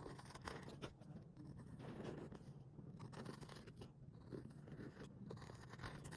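Near silence: a faint low hum with scattered soft scratching and clicking.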